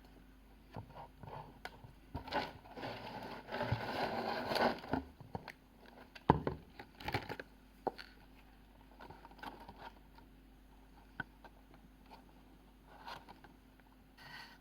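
Packaging being handled: a rustling, scraping stretch of a few seconds, then a sharp knock a little later, with scattered small clicks and taps.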